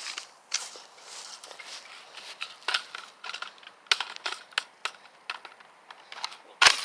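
Footsteps crunching on dry outdoor ground: a run of uneven crackling clicks, with one louder sharp crack near the end.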